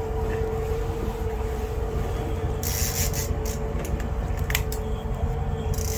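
Boat motor running steadily at trolling speed with a constant hum, under low rumbling noise on the microphone, and a brief hiss about three seconds in.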